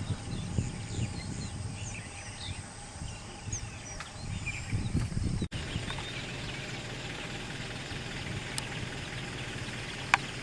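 Birds chirping over the low, steady running of a truck engine, with one sharp click near the end.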